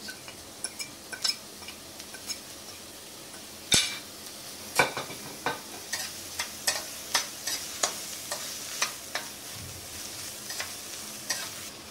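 Metal spatula scraping and knocking against a stainless steel kadhai as chopped onions and green chillies sauté in butter with a light sizzle. A few small clicks come first, then a sharp knock about four seconds in and a run of stirring strokes, roughly two a second.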